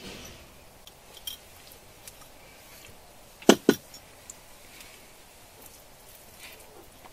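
Eating utensils knocking against dishware: two sharp clinks in quick succession about halfway through, with a lighter click a little over a second in.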